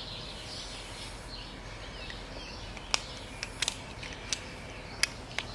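Scattered sharp metallic clicks of a screwdriver tip working at a screw on a steel ignition-coil mounting bracket, about seven clicks over the last two and a half seconds.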